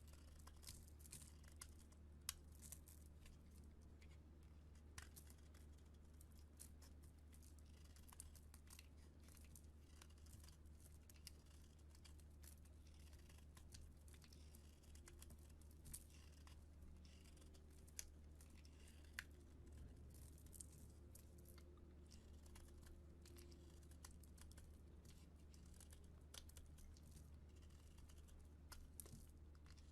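Soap being chopped with a knife: faint crisp crackling with scattered sharp clicks as the blade cuts through, over a low steady hum.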